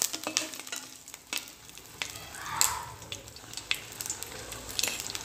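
Tempering in hot oil: curry leaves, dried red chilli and mustard seeds sizzling in a metal pot with scattered crackles and pops, and a wooden spatula stirring them.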